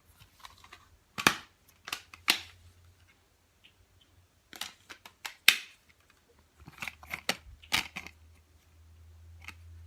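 Handling of a DVD and its packaging: groups of sharp clicks and crinkles, the loudest three about a second in, more around the middle and again near the end.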